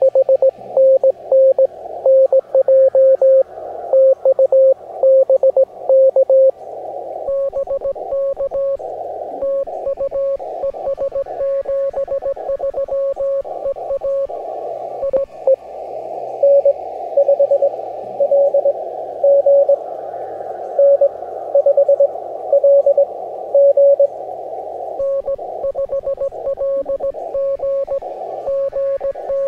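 Morse code (CW) signals heard through an amateur radio receiver tuned to the 17-metre band: a keyed tone of short and long beeps over filtered band hiss. About a quarter of the way in, the hiss grows louder and a second, fainter, higher-pitched CW signal comes in alongside the first; the hiss drops back near the end.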